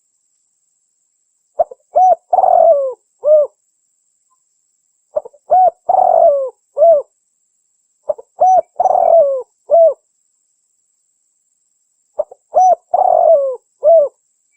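Spotted dove singing: its cooing phrase repeats four times, a few seconds apart. Each phrase is a short run of coos with one longer, drawn-out coo in the middle.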